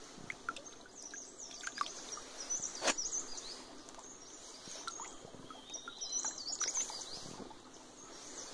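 Birds chirping over the gentle trickle of a shallow stream, with a few short splashes and knocks as bare feet step through the water onto gravel and stones; the sharpest comes about three seconds in.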